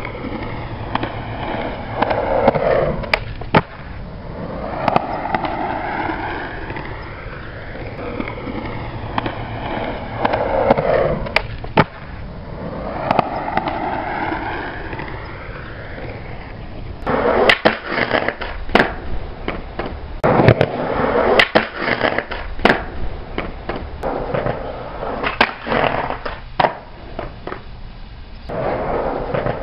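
Skateboard wheels rolling and carving on concrete, a steady rumble that swells and fades. In the second half, a run of sharp clacks and slaps: the board popping, landing and hitting the concrete during trick attempts.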